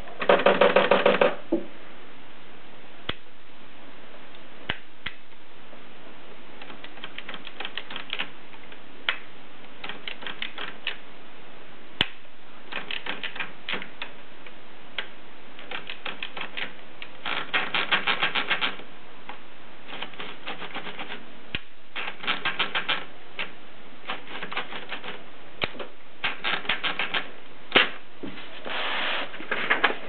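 Manual typewriter's platen and carriage being worked by hand: repeated bursts of rapid ratchet clicking as the paper is rolled in, each about a second long, with scattered single clicks between. The loudest burst comes at the very start.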